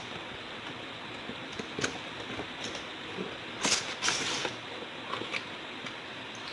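Toy box packaging being handled: scattered clicks and knocks and one short rustle of cardboard and plastic about halfway through, over a steady hiss.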